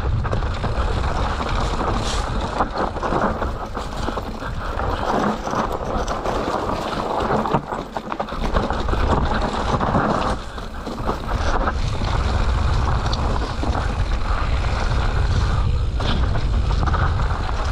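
Wind rushing over the microphone, with a mountain bike's tyres and frame rattling and knocking over rough trail on a fast downhill run.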